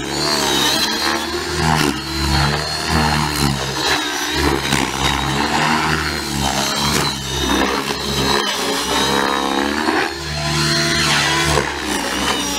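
Radio-controlled model helicopter flying aerobatics, its rotor and motor sound rising and falling in pitch again and again as it manoeuvres.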